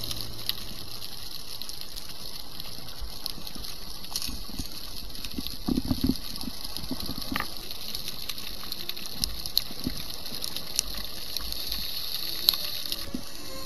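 Underwater ambience heard through a diving camera's housing: a steady hiss with scattered sharp clicks and crackles, and a short low burble of a scuba diver's exhaled bubbles about six seconds in.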